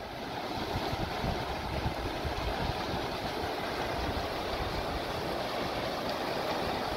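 Whitewater rapids of a fast river rushing steadily, growing a little louder in the first second.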